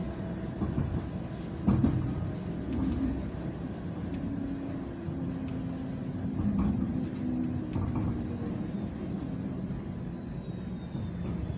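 Cabin noise of a TTC Bombardier Flexity streetcar under way: a steady low rumble with a few scattered knocks, the loudest about two seconds in, and a low hum through the middle.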